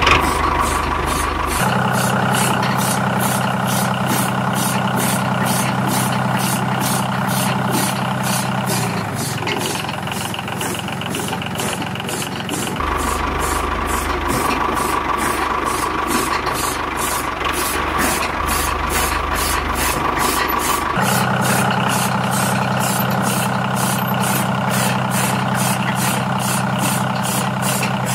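Single-cylinder diesel power-tiller engine running at a steady chug, with a regular knock about twice a second; its hum changes tone a few times.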